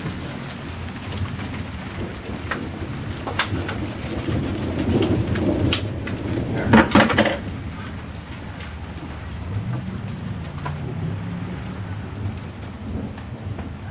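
Thunder rumbling low and rolling over steady rain, swelling to a loud sharp crackle about seven seconds in, then a weaker rumble; scattered drops tick throughout.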